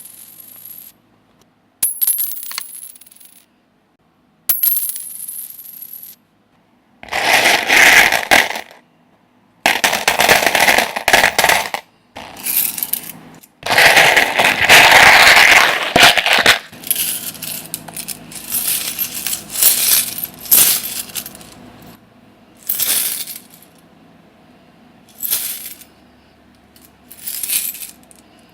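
A series of separate coin sounds: coins dropping and clinking. The first few are short clinks with a high ring. Louder rattling spills of many coins follow, each lasting two to three seconds, then shorter, quieter jingles.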